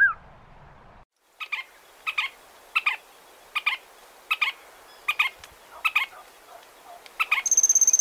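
Red-shouldered spinetail (João-xique-xique, Synallaxis hellmayri) singing: a short, sharp doubled note repeated about eight times, roughly every three-quarters of a second. Near the end a high, thin, even trill starts and runs for just over a second.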